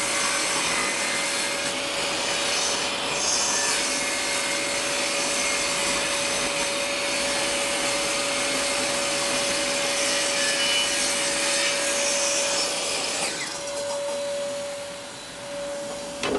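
Total TS5152542 10-inch table saw rip-cutting a pine board, the blade chewing steadily through the wood over a constant motor tone. About three seconds before the end the cut finishes and the saw runs on freely.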